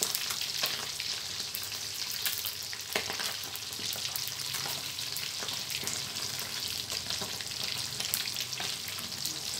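Sun-dried red tilapia deep-frying in a wok of hot oil: a dense, steady crackling sizzle full of small pops, with a few sharper clicks, the loudest about three seconds in. The fish is at the stage of starting to cook through and turn golden.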